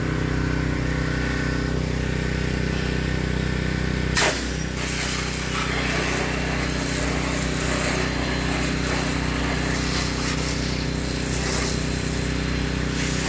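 A pressure washer's engine running steadily. About four seconds in there is a brief burst as the spray opens, and from then on the hiss of water jetting from the adjustable nozzle on its rinse setting runs over the engine.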